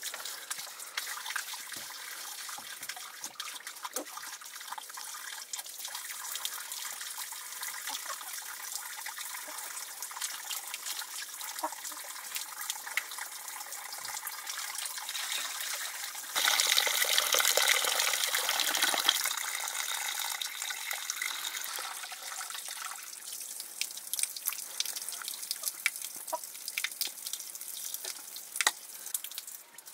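Water running and splashing steadily, with small drips and splashes throughout; it swells louder for a couple of seconds about halfway through, as if poured or run harder.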